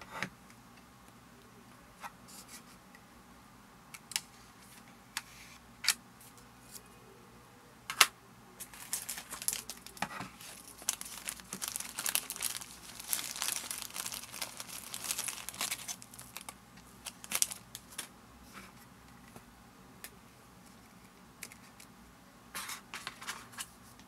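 A clear plastic bag crinkling and rustling as it is handled and opened to take out a round filter pad, mostly through the middle stretch and again briefly near the end. Scattered sharp clicks of small plastic parts being handled come before it.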